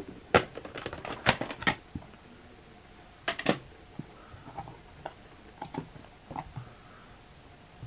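Hard plastic VHS clamshell case being handled: a run of sharp clicks and clacks as the case is opened and the cassette taken out and set down, the loudest in the first two seconds and again just after three seconds, then lighter ticks and taps.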